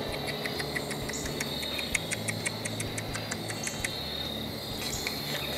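Gray or fox squirrel gnawing on a nut: a quick, even run of sharp chewing clicks, about six a second, that stops about four seconds in, over a steady high drone of insects. This chewing is a sign of a feeding squirrel in the treetops.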